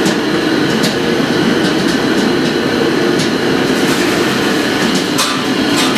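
Commercial kitchen din: a steady low roar, as from extraction hoods and burners, with several sharp metallic clinks of pans and utensils scattered through it.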